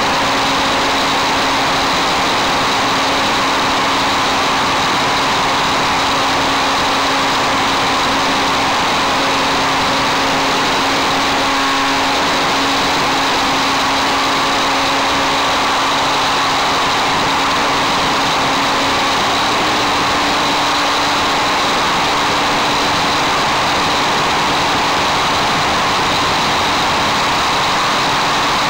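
A radio-controlled model airplane's motor and propeller running steadily in flight, heard close up from a camera on the plane, with a steady rush of air. The pitch steps up slightly about two-thirds of the way through.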